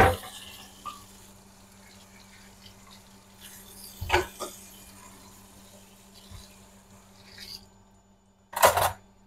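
Water from the kitchen tap runs into a stainless steel sink as wooden cutting boards are rinsed and handled. A loud wooden knock comes at the start and two smaller knocks about four seconds in. A short, loud burst of noise comes near the end.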